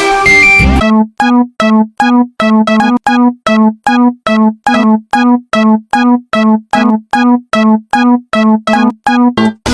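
A busy stretch of music cuts off about a second in. It gives way to a Japanese railroad crossing (fumikiri) warning bell ringing steadily, about two and a half dings a second, each ding a single pitched electronic tone that dies away quickly.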